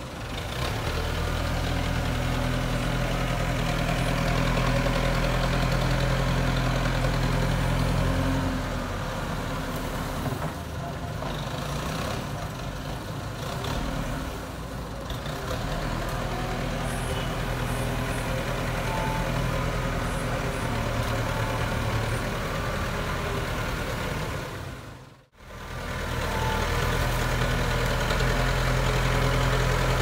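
JCB 3CX backhoe loader's diesel engine running steadily as the machine works, its level rising and falling. The sound cuts out abruptly for a moment about 25 seconds in, then resumes.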